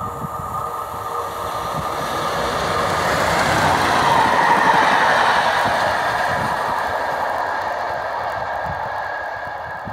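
Class 37 diesel locomotive with an English Electric V12 engine passing through, its engine and wheels growing louder to a peak about four to five seconds in as it goes by, then fading away as it recedes.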